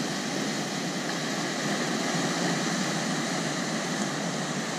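Sea surf breaking and washing over a rocky shore: a steady rush of waves.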